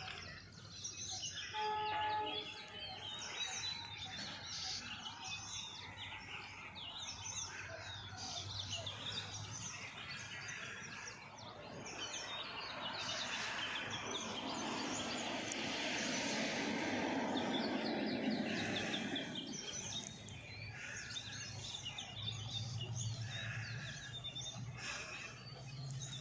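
Small birds chirping and twittering over steady outdoor background noise. A broader rush of noise swells and fades through the middle. A low hum comes in near the end.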